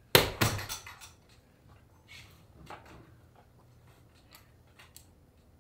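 Leather saddle seat and hand tools being worked on a saddle: a quick cluster of knocks and scrapes in the first second, then faint scattered ticks and rustles of leather.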